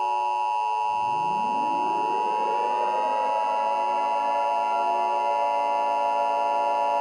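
Steady electronic emergency-alert tone made of several held pitches. About a second in, a cluster of lower tones starts gliding upward and settles over the next few seconds into a held chord beneath the alert tone.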